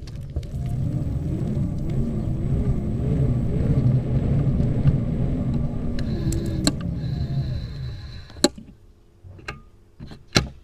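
Xiaomi Mijia M365 electric scooter being ridden: a steady low rumble of its wheels on the ground with a wavering whine over it, dying away after about eight seconds, then a few sharp clicks. No squeak comes from the folding latch, just treated with silicone lubricant.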